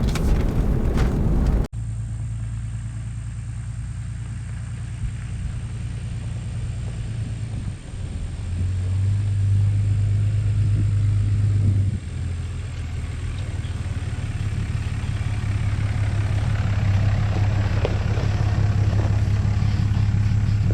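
Ram 2500 pickup truck driving, a steady low engine and road drone with a sharp edit cut about two seconds in. The drone swells louder for a few seconds in the middle, then settles back.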